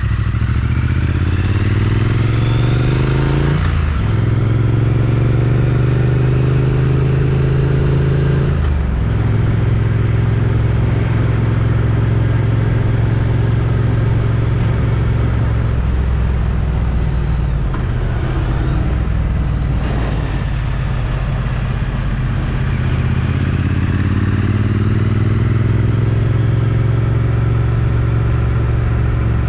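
Triumph Street Twin's 900 cc parallel-twin engine through its stock exhaust, revving up under acceleration and changing gear about four seconds in and again around nine seconds. It then cruises at a steady speed and pulls up through the revs again near the end.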